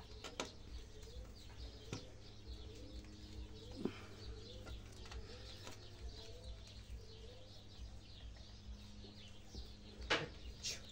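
Faint pigeon cooing in the background, a low wavering call repeated several times, over a steady low hum. A few soft clicks from hands working through the bonsai's branches and wire, the loudest about ten seconds in.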